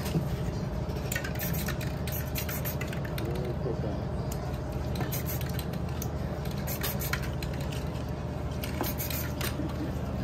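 Aerosol spray-paint can giving short bursts of hiss, with light clicks, over a steady low hum.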